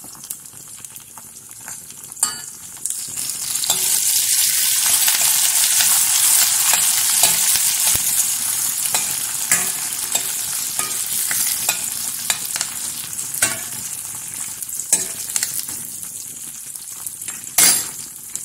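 Sliced onions and curry leaves sizzling in hot oil in a stainless-steel kadai, stirred with a spatula that scrapes and knocks against the pan every few seconds. The sizzle swells about four seconds in, then slowly dies down.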